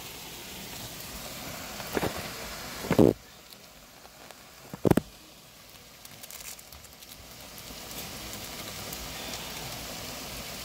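Crackling sizzle of food cooking on the stove, broken by a few loud knocks of handling about two, three and five seconds in. The sizzle drops away after the third knock and slowly comes back.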